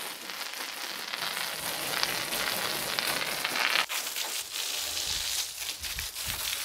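Water from a garden hose spraying onto a tractor, a steady hiss and splatter of water hitting metal and wet concrete. It breaks off for an instant about four seconds in, then the stream splashes on.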